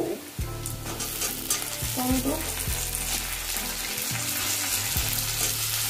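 Sliced onions sizzling steadily in hot mustard oil in a metal wok. A metal spatula scrapes and taps against the pan as it stirs, and chopped tomatoes go in.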